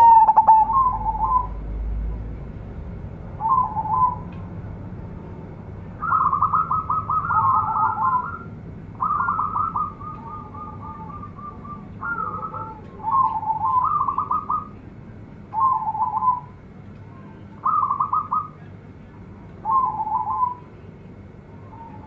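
Zebra dove (perkutut) singing its rapid staccato cooing song: short trilled phrases roughly every two seconds, with longer runs of notes in the middle. A sharp click at the very start.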